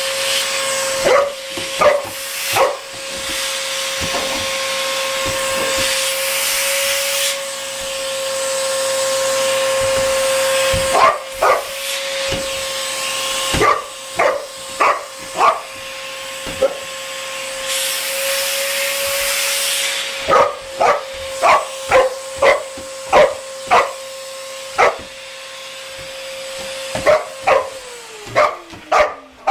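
A boxer dog barking again and again, in clusters of short barks, over the steady whine of a running Dyson vacuum cleaner. Near the end the vacuum's whine drops in pitch as its motor winds down.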